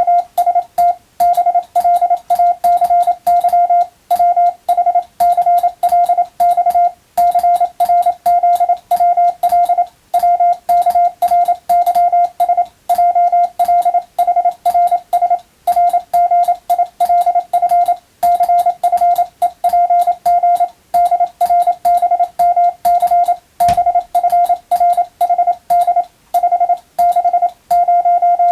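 Hand-keyed Morse code (CW): a single steady tone of about 700 Hz switched on and off in rapid dots and dashes, with short gaps between characters and words.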